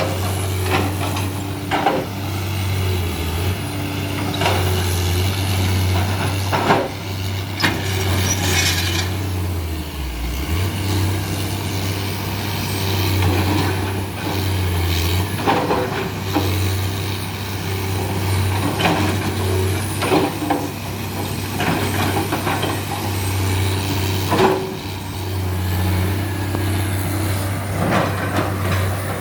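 Heavy excavator's diesel engine running steadily, with scattered knocks and clatter throughout and a brief hiss about eight seconds in.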